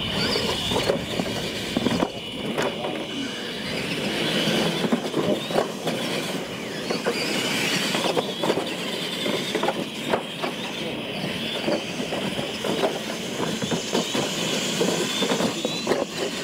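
Electric R/C monster trucks racing over a dirt track with jumps. Their motors whine, rising and falling with the throttle, and repeated knocks and clatter come as the trucks hit the ramps and land.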